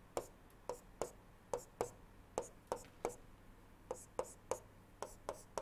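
Stylus tapping on a tablet screen while drawing short pen strokes: a series of light clicks, about two to three a second.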